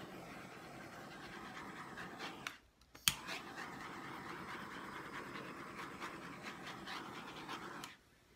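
Handheld torch flame hissing steadily as it is run over a wet acrylic paint pour. The flame goes out about two and a half seconds in and is relit half a second later with a sharp igniter click, then hisses again until shortly before the end.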